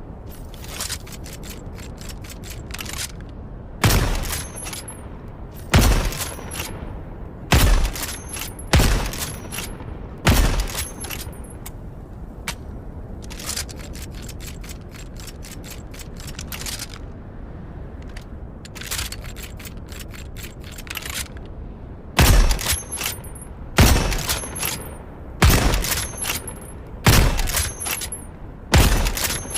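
Rifle sound effect: loud single shots about every one and a half to two seconds, in two strings of five, with quicker runs of lighter clicks between the strings.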